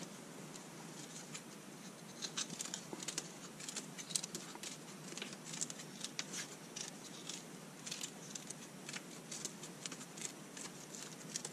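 Scissors snipping through paper-backed grit traction tape, many short cuts in quick, irregular succession.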